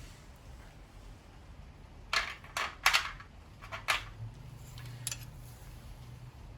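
Hand tools and small metal motorcycle parts clinking together as the stock rear footrest assembly is taken apart: four sharp metallic clinks between about two and four seconds in.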